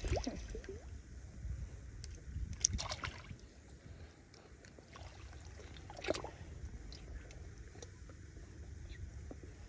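Shallow water sloshing and splashing as someone wades and feels around in it, over a steady low rumble, with sharper splashes about three seconds and six seconds in.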